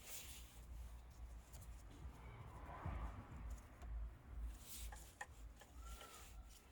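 Faint rubbing and handling noise with a few short, sharp clicks about five seconds in, from hands working the glow plug wiring connectors in a diesel engine bay, over a low rumble.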